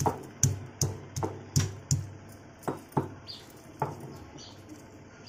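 Stone pestle pounding a piece of fresh ginger coarsely in a stone mortar: sharp knocks two to three times a second, thinning to a few scattered strikes and stopping about four seconds in.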